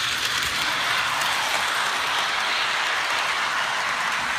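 Model steam locomotive running, giving a steady hiss with no beat to it.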